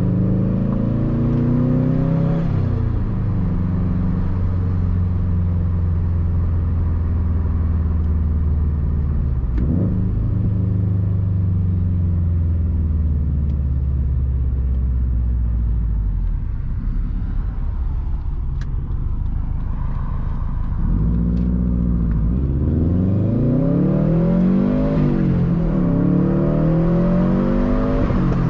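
2013 Subaru WRX STI's turbocharged 2.5-litre flat-four engine running through a titanium Tomei Expreme Ti exhaust while driving: it climbs in revs and shifts about two seconds in, cruises steadily, eases off and goes quieter about sixteen seconds in, then revs rise and fall several times near the end.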